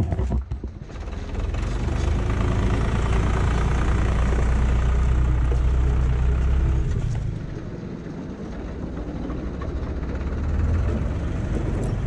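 Farm tractor engine running steadily as the tractor pulls a mounted seed drill across the yard. The engine sound eases off a little past halfway and rises again near the end.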